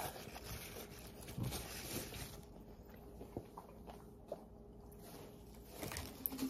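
Faint rustling and small handling clicks over quiet room tone, with a paper napkin being used at the start.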